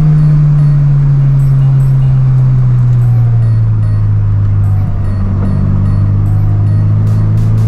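Subaru BRZ's flat-four boxer engine running under way, its note falling slowly and steadily as engine speed drops off.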